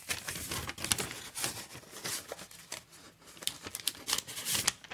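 Paper wrapping crinkling and tearing as it is pulled open from around a new phone, a run of irregular crackles and rustles.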